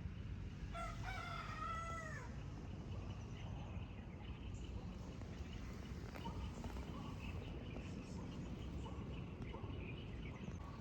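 A rooster crows once, about a second in, a single call of about a second and a half that rises and then falls in pitch. Faint short bird calls follow over a steady low rumble.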